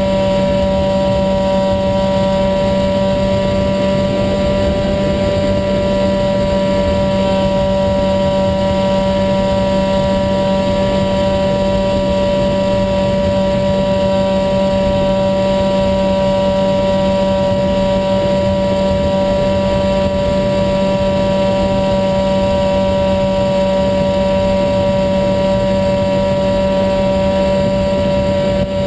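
Brushless electric motor and pusher propeller of an HK Bixler foam RC plane running at a steady cruising throttle: an even whine of several held tones over rushing wind noise on the onboard camera.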